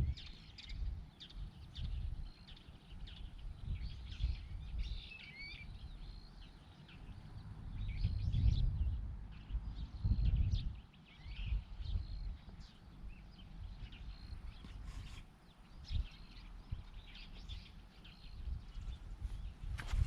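Outdoor ambience: scattered short bird chirps over an uneven low rumble that swells and fades, loudest about eight to eleven seconds in.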